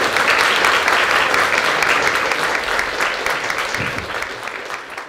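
Audience applauding: a dense spread of hand claps that thins out gradually toward the end.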